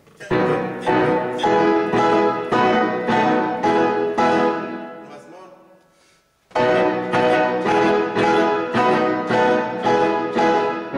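Piano playing a run of repeated chords, about one and a half a second, each one struck and dying away. The playing stops about halfway, leaves a short gap, then starts the passage over.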